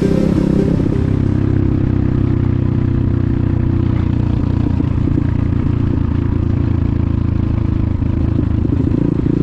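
Enduro motorcycle engine running at a steady pitch.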